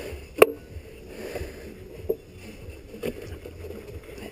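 Handling noise as a motorcycle bodywork tail section is worked into place: one sharp click about half a second in, then two lighter knocks.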